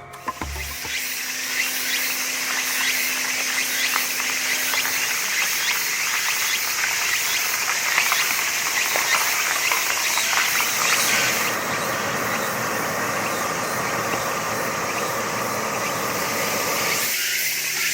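Late-summer insect chorus: a dense, steady chirring of many insects. About 11 seconds in the higher part of the chorus drops out and a steadier, lower trill carries on.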